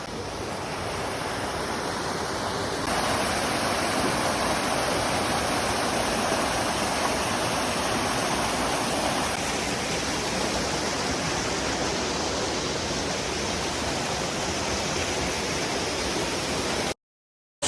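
Waterfall rushing steadily, growing louder about three seconds in, then cutting off suddenly near the end.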